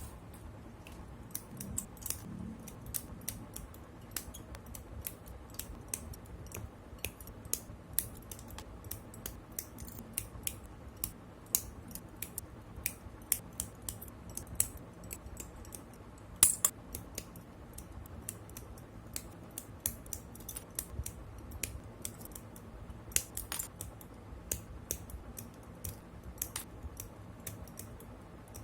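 Small, sharp plastic clicks and snips at irregular spacing, about one or two a second, from parts and tools of a Gundam plastic model kit being worked by hand. The loudest snap comes about 16 seconds in.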